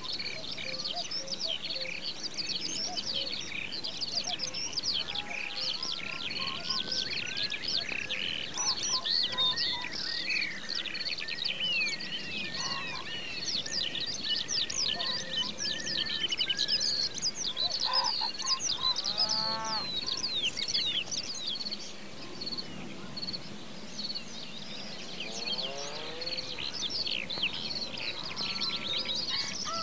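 Chorus of many songbirds singing and chirping over one another. A run of evenly repeated notes sounds in the middle, and a lower-pitched bird gives a series of falling calls twice in the second half.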